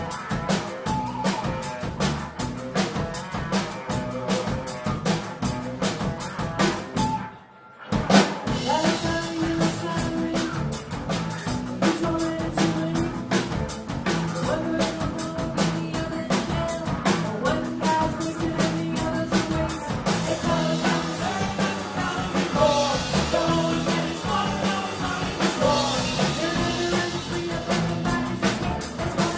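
Live rock band playing a pop-punk cover, with a full drum kit pounding a steady beat, guitars and singing. About seven seconds in the band stops dead for under a second, then crashes back in on a loud hit.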